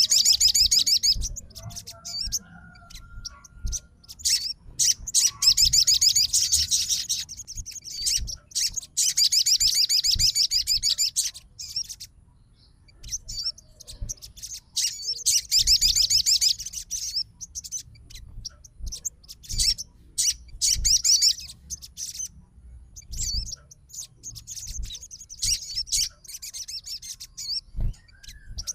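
Sogon songbird in fighting mood, calling out a rival: bursts of rapid, high chattering trills lasting one to three seconds, broken by short pauses.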